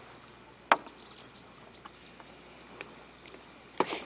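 A beer can set down on the table with a couple of quick knocks near the end, after a single sharp click about a second in. Faint high chirping runs underneath.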